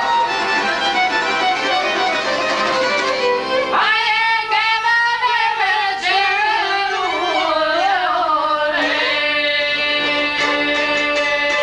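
Live folk music on violin, accordion and long-necked lute. The violin carries the melody, which becomes wavering and heavily ornamented through the middle, over a steady accompaniment of held chords.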